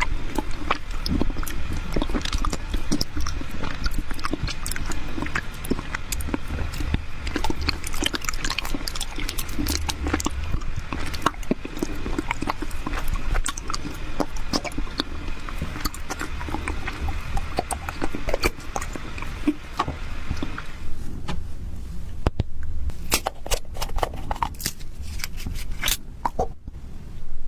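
Close-miked eating sounds: chewing and biting a sticky honey-based sweet, with dense wet clicks and crackles. A faint steady tone in the background stops about three quarters of the way through.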